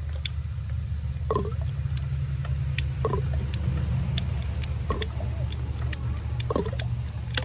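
An animal calling again and again, a short falling call about every two seconds, over a steady low hum.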